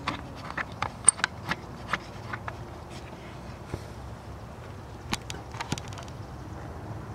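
Scattered sharp clicks and light knocks over a steady outdoor background hiss, with a small cluster of clicks about five seconds in.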